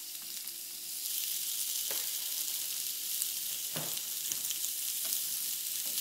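Raw bacon-wrapped meatloaf patties sizzling on a heated grill pan, the sizzle growing louder about a second in as another patty goes down. A few knocks as the patties are set onto the pan with a spatula.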